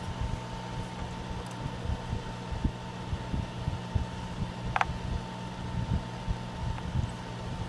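Steady low hum with soft, irregular bumps from a plastic stirring stick working in a melting pot of molten embossing powder, and one brief high squeak a little under five seconds in.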